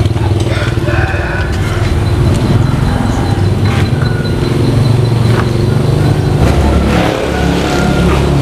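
A motor vehicle engine running steadily, its pitch dropping a little near the end, with scattered knocks and scrapes from large cardboard parcels being slid out of a box truck's cargo bay.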